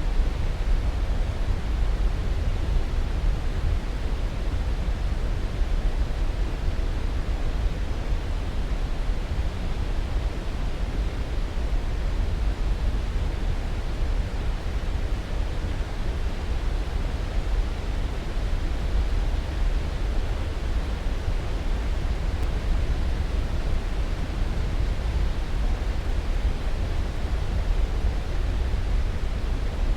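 Steady, unbroken noise for sleep, strongest in the deep bass and fading toward the treble, with no changes or separate events.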